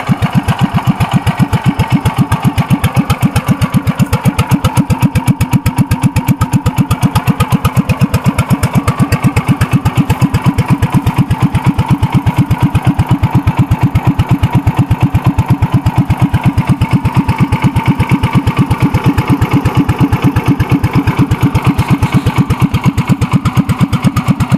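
Kawasaki-powered Commuter TE390 three-wheeler idling steadily, its exhaust beating in a rapid, even pulse.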